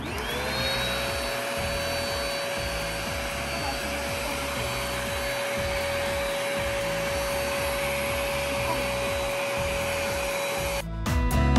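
Iris Ohyama rinser cleaner's suction motor starting up, its pitch rising briefly and then holding steady over a rush of air as it runs for about eleven seconds. It cuts off abruptly near the end.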